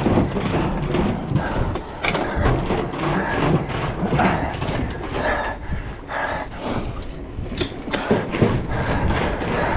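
Mountain bike ridden over rough ground, heard through a GoPro mounted on the bike or rider: a dense, loud jumble of rattles and knocks.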